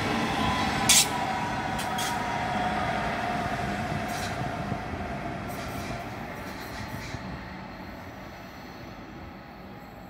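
metronom double-deck regional train rolling past and away, its rumble fading steadily, with a thin wheel whine in the first half. A few sharp clicks in the first seconds as the wheels cross rail joints.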